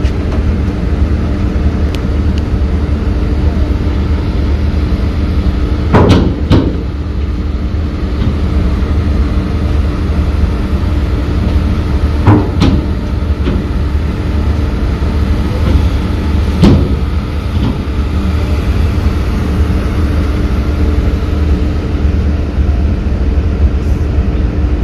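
Steady machinery hum of a docked car ferry's engines running. Several sharp knocks or clanks come over it, two about six seconds in and single ones around twelve and seventeen seconds.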